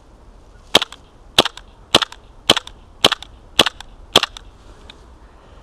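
KWA H&K Mk23 gas blowback airsoft pistol running on propane in freezing cold, fired seven times at an even pace of about two shots a second. Each shot is a sharp crack followed closely by a fainter click.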